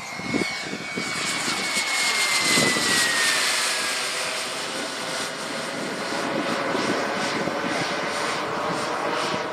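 Small turbine engine of a radio-controlled model jet in flight: a steady rush of jet noise with a high whine that drops in pitch about two to four seconds in as the plane passes.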